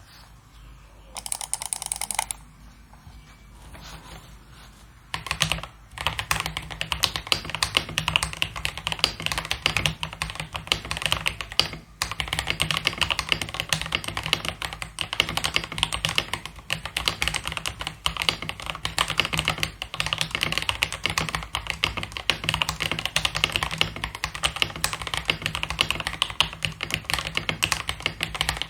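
Fast typing on an Aula F3032 gasket-mount mechanical keyboard with pre-lubed Aula tactile switches and transparent PC keycaps: dense, continuous keystroke clacks that begin about five seconds in and pause briefly near the middle. A short burst of noise comes about a second in, before the typing starts.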